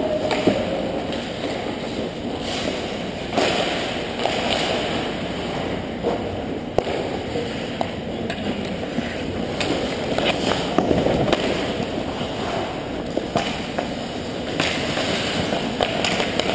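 Ice hockey play close by: skate blades scraping and carving the ice, with repeated sharp clacks of sticks and the puck.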